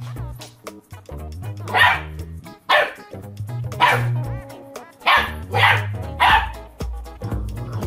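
A puppy barking at an ice cube in short, sharp barks, about six of them in the middle of the stretch, over background music.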